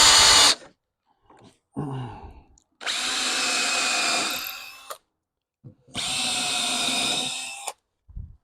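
Electric drill serving as the headstock of a homemade wood lathe, run in three bursts while spinning an ash workpiece: a short one at the start, then two of about two seconds each with a steady whine, the first winding down as it stops. A brief knock comes between the first and second runs.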